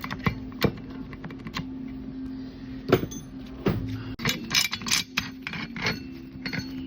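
Metal clicks and jingling clinks of winch parts and hand tools being handled, scattered at first and bunching into a rattling run about two thirds of the way through, over a steady low hum.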